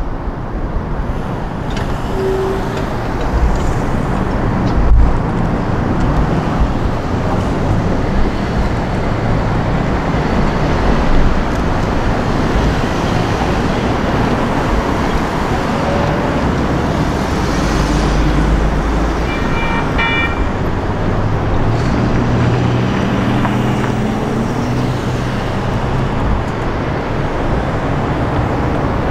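Road traffic moving steadily past the crossing, with vehicles rumbling by one after another. About two-thirds of the way through comes a short, high, horn-like tone.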